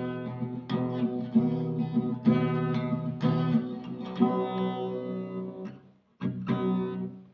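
Acoustic guitar strumming chords, breaking off for a moment about six seconds in, then a final chord struck and left to ring out and fade.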